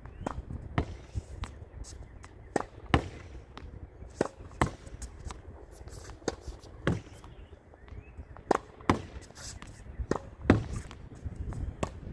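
Regular-weight, low-compression tennis ball being rallied against a practice wall: sharp racket strikes and thuds of the ball off the wall and court, mostly in pairs about half a second apart, repeating every second and a half to two seconds.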